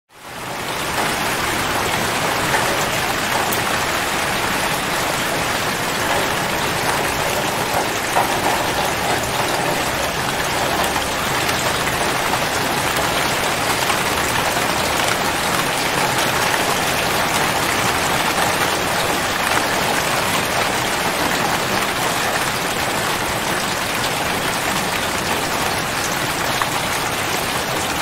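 Steady rain falling, an even hiss that fades in over the first second and then holds.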